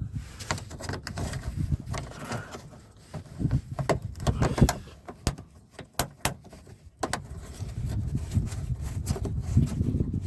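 Irregular clicks, knocks and scraping of a plastic wheel-well fender liner and its fasteners being handled and pushed into place.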